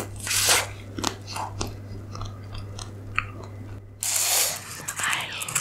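Close-miked biting into a Nestlé Drumstick vanilla ice cream cone's topping of roasted peanuts and chocolate sauce. There are two loud crunchy bites at the start, then chewing with small crunches, and denser crunching again near the end.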